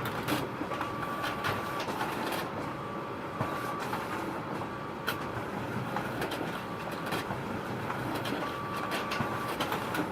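Photocopier running, a steady mechanical whirr with frequent sharp clicks and a thin high whine that sounds for about a second at a time, every few seconds.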